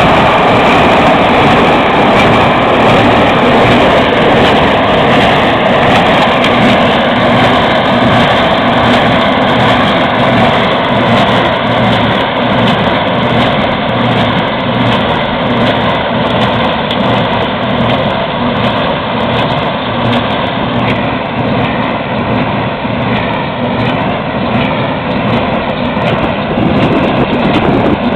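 Heavy engine of a hay-baling rig running steadily.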